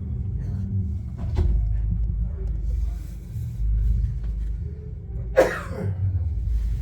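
Muffled, bass-heavy music from a hi-fi system playing in the room, with one short, sharp noise about five seconds in.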